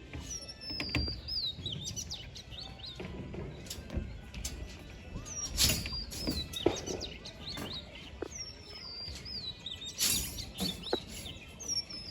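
A bird singing a short high whistled phrase that falls in pitch, repeated about four times, with a few sharp knocks between the phrases.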